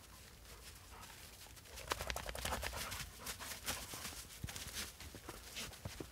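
Steps crunching in fresh snow: an irregular run of sharp crunches that starts about two seconds in, after a quieter opening.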